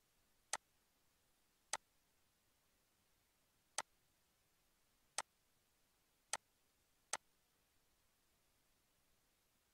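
Computer mouse button clicking six times at irregular intervals, each a short sharp click, against near silence.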